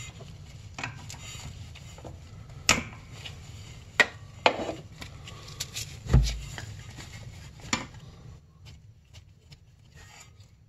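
Irregular clicks and knocks of hand handling around a snowmobile engine's oil injection pump as it is bled, with one heavier low thump about six seconds in. It grows quieter over the last few seconds.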